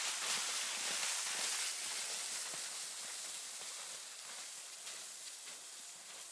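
Cut spruce tree dragged over snow, its branches swishing and hissing, mixed with footsteps crunching in the snow. The sound fades steadily.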